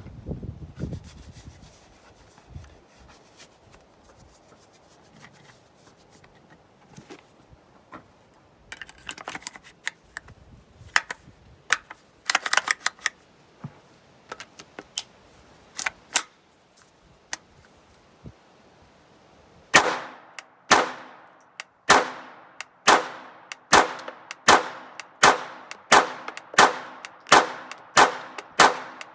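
Intratec Tec-22 .22 LR semi-automatic pistol firing a steady string of about a dozen shots that speeds up to nearly two a second, each shot with a short ringing tail; the pistol cycles through the string without a jam. Before the shooting there are only faint scattered handling clicks.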